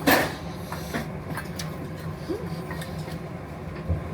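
Restaurant room noise: a steady low hum, with a brief loud rustle or clatter right at the start and a few faint clicks of tableware and distant voices after it.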